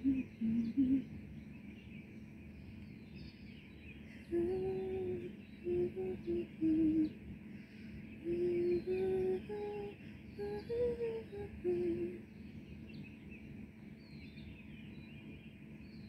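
A woman humming a slow tune in held, stepping notes: a short phrase at the start, then a longer run of phrases from about four to twelve seconds in. Birds chirp faintly in the background throughout.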